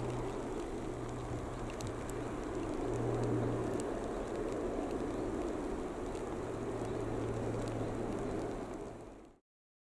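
Airbus A380 jet engines rumbling steadily as the airliner climbs away after takeoff. The rumble fades and cuts off near the end.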